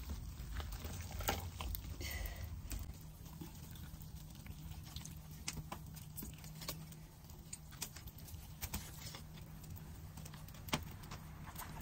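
Knife and hands butchering a whole chicken over a metal bowl: scattered small clicks, taps and scrapes, over a faint steady low hum.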